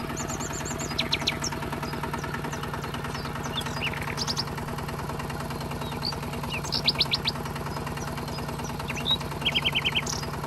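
Small motor and gearing of a homemade miniature toy tractor running steadily with a fast, even buzz. Birds chirp in short quick trills about four times over it.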